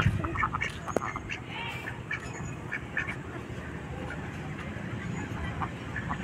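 A flock of domestic ducks quacking: many short, scattered calls, thickest in the first few seconds, with a sharp click about a second in.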